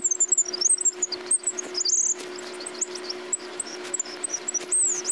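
Small clicks and rattles of a string of lights' wire being fed into a glass bottle, with quick high chirping squeaks throughout and a steady low hum underneath.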